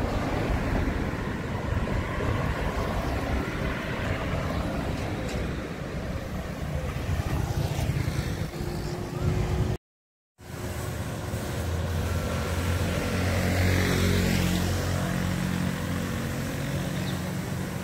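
Street traffic: motor vehicle engines running and passing, with a steadier engine hum in the second half. The sound cuts out completely for about half a second near the middle.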